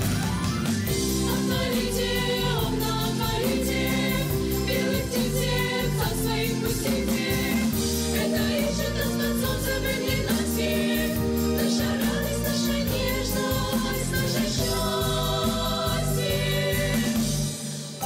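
Girls' choir singing a song in parts over a low instrumental accompaniment, with a brief dip in loudness just before the end.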